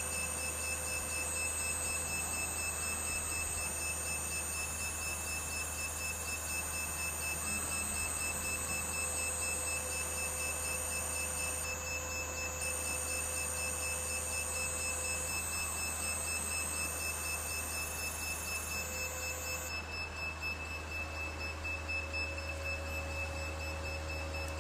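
Stepper motors of a small CNC machine whining while the machine traces a small circle, with high tones that shift pitch in steps every second or two over a steady low hum. The highest tones drop out about twenty seconds in.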